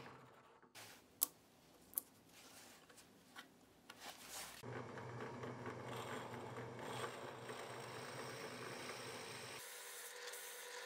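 Drill press running steadily as a drill bit bores into a small wooden block, after a quieter stretch in which two sharp clicks sound, about one and two seconds in.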